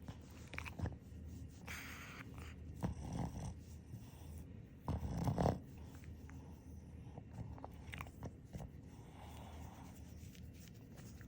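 Sleeping Boston terrier breathing noisily through its short, flat nose: a few separate snuffling, snoring breaths, the loudest about five seconds in, with small clicks between them.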